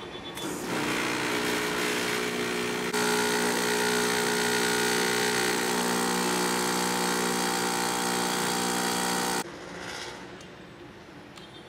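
Espresso machine's pump running as a shot is pulled: a steady hum that gets louder about three seconds in and cuts off abruptly near the end as the shot is stopped.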